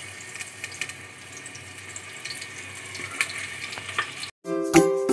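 Halved potatoes sizzling in hot mustard oil in an aluminium pressure cooker, a steady hiss with scattered small pops and crackles. About four seconds in it cuts off suddenly and plucked, ukulele-like background music begins.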